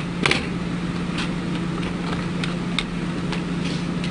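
A steady low hum with about five light, scattered clicks. The clicks come from small parts and a Phillips screwdriver being handled during hand reassembly of a syringe pump.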